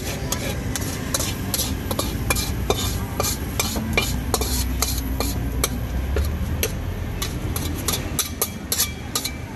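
Metal spatula scraping and clanking against a steel wok as rice is stir-fried, with irregular sharp clinks several times a second over a steady low rumble.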